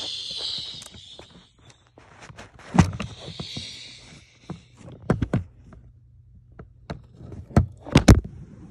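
Handling noise: irregular knocks and bumps with bouts of rustling, as of a phone being moved and rubbed against plastic close to its microphone. The loudest knocks come about three seconds in, around five seconds, and twice near the end.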